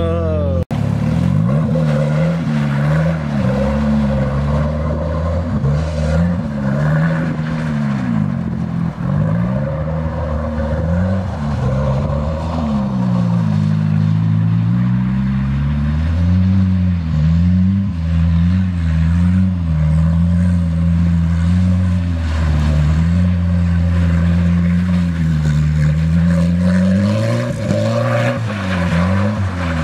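Volvo 740 wagon's engine revving up and down over and over as the car drifts on snow.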